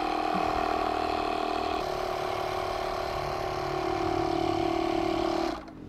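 Small portable 12 V tyre-inflator compressor running steadily as it pumps up a flat car tyre; its pitch dips slightly about two seconds in, and it cuts off just before the end.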